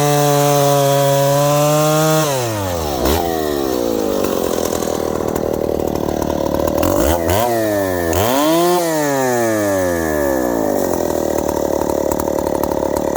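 Freshly serviced Stihl 090AV two-stroke chainsaw running at high revs, then the throttle is let off about two seconds in and the pitch falls away. It is blipped up and dropped back twice around seven to nine seconds in, then runs on at a lower, steadier speed.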